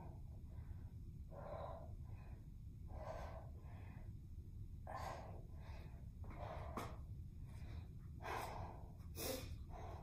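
A woman breathing hard during exercise: forceful breaths in and out about every second and a half, with a sharper, louder burst near the end, over a steady low hum.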